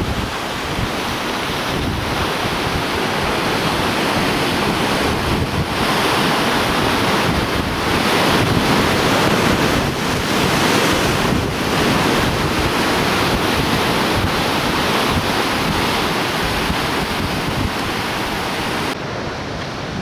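Sea surf breaking and washing against a rocky shore, mixed with wind buffeting the microphone, rising and falling in slow surges. About a second before the end the high hiss thins out.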